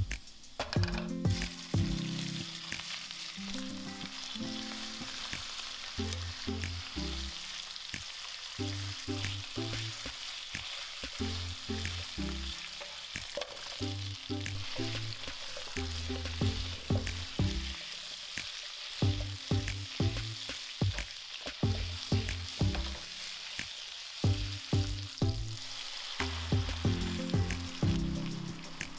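Pork slices and chunks of onion, carrot and potato sizzling as they fry in oil in a frying pan, a steady hiss, with plucked background music notes over it.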